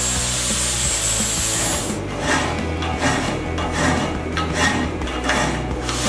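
Angle grinder's disc grinding a steel piece clamped in a vise: a steady high-pitched grinding for about two seconds, then rougher, uneven scraping as the disc is worked back and forth across the metal.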